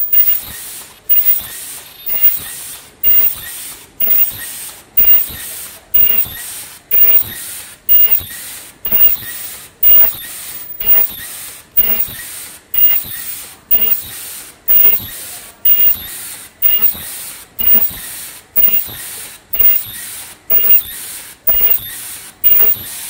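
A KN95 mask-making machine running in production, cycling in a steady rhythm about once a second. Each cycle is a sharp burst of hissing air with a mechanical clack, then dies away before the next.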